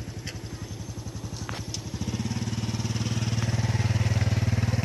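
Engine running with a fast, even pulsing beat, growing louder and steadier about two seconds in.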